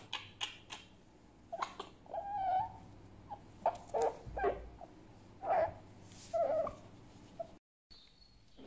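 Fennec fox making grumpy, annoyed sounds: a quick run of sharp clicks, then short whining calls about a second apart, one of them wavering in pitch. The calls stop near the end.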